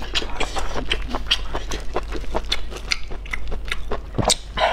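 Close-miked chewing of rubbery cooked octopus: wet mouth clicks and smacks at an uneven pace, with one louder click about four seconds in.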